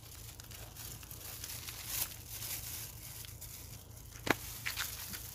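Faint background with a steady low hum, and a few small rustles and clicks of clothing brushing a clip-on microphone. The sharpest click comes about four seconds in.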